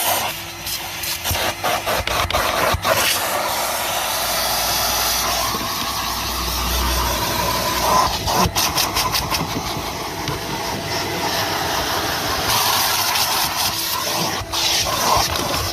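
Kerstar KV25-2 twin-motor commercial vacuum cleaner running with a steady rushing hiss of suction, while its nozzle works over a car. Scattered clicks and knocks come near the start, about halfway and near the end.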